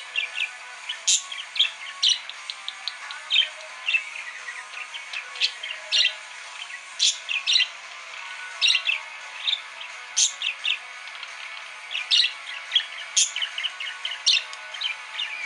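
Budgerigar warbling: a steady stream of chatter broken by sharp chirps and clicks, several a second.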